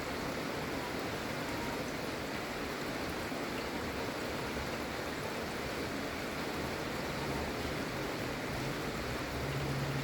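Gentle, steady rain, an even hiss with no single drops standing out. A low hum comes up near the end.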